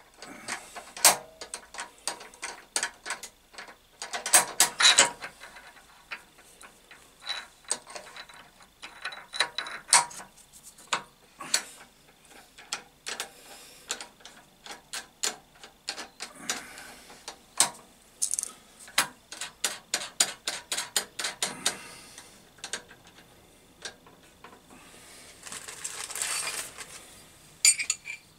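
Hand work on a mill/drill's spindle and chuck: irregular sharp metallic clicks and clinks, some in quick ratchet-like runs, and a short rubbing or scraping hiss near the end.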